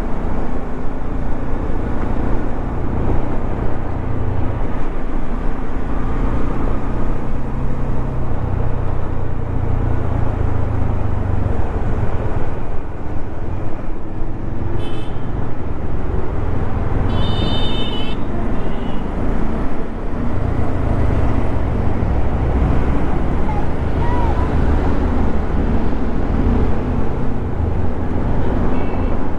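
Bajaj Dominar 400's single-cylinder engine running under way on a highway, its pitch rising and falling as the throttle changes, with traffic noise around it. A vehicle horn beeps briefly about halfway through, then sounds again for about a second just after.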